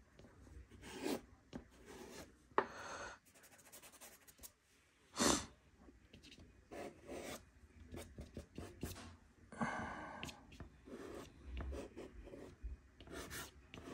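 Nupastel hard pastel stick scratching and rubbing across Clairefontaine Pastelmat paper in irregular short strokes, with one louder burst about five seconds in.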